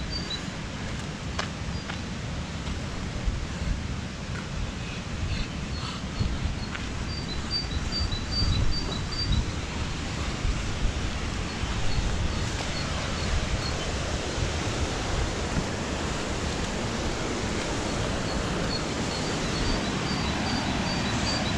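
Low Force waterfall on the River Tees rushing: a steady roar of falling water with an uneven low rumble underneath. Runs of short, high bird chirps come and go over it.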